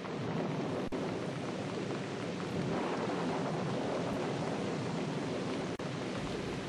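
Steady rain falling on a roof, an even hiss without any distinct drops standing out.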